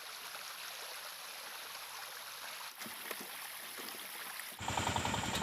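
Faint, steady rush of river water. A louder sound comes in near the end.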